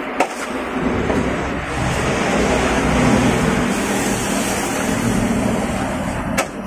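A motor vehicle passing close by: a wash of engine and tyre noise that builds, holds loudest through the middle and eases near the end. A couple of light clicks sound near the start and end.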